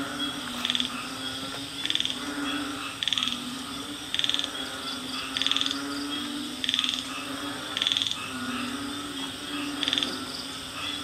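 Night chorus of frogs and insects: a short buzzing call repeats about every second and a quarter, over a steady low croaking chorus that swells and fades and a continuous high insect whine.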